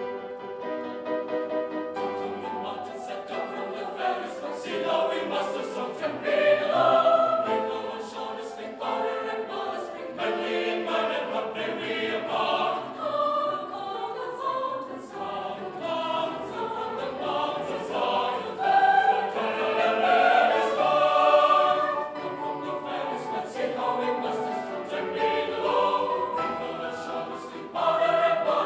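Mixed choir of men's and women's voices singing a classical choral piece.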